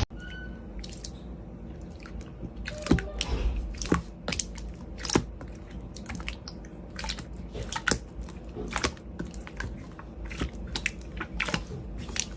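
Clear slime being squeezed and poked by hand, making irregular sticky clicks and pops, several a second, over a faint steady hum.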